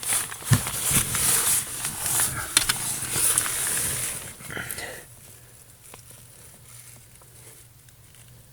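Rustling and scraping with sharp clicks as hands pull the old turn signal flasher out of its socket under a car's dashboard. The handling noise stops about five seconds in, leaving a faint low hum.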